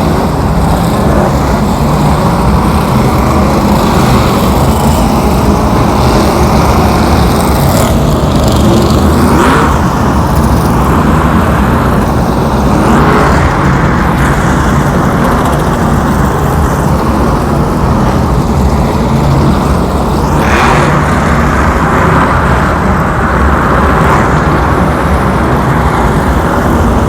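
A field of modified stock cars running laps on a short oval track, with a loud, continuous engine drone. Now and then a car passes close by with a brief rise and fall.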